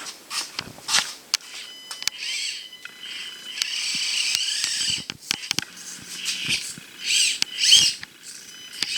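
Axial SCX24 Deadbolt 1/24-scale crawler's tiny electric motor and gears whining in short bursts that rise and fall in pitch as it is driven. Sharp clicks and knocks come between the bursts.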